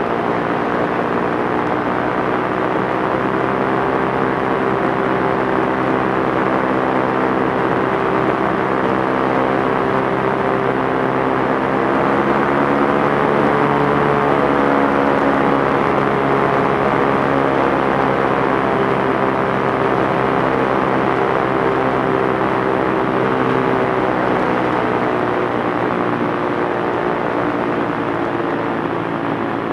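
Light airplane's piston engine and propeller droning steadily in flight, its pitch shifting slightly about halfway through before settling again.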